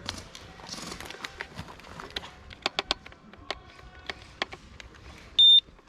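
Irregular small clicks and taps of airsoft gear being handled, as during a battery change, then a short, loud, high-pitched electronic beep near the end.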